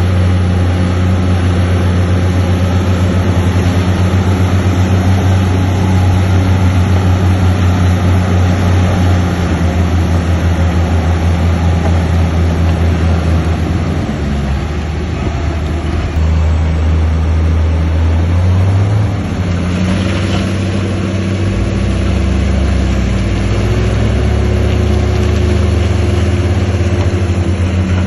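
Heavy diesel engine of earthmoving machinery running steadily, its engine note shifting in speed twice in the second half.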